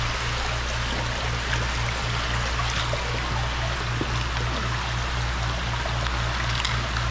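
Creek water running and trickling steadily, over a low hum that pulses about four times a second.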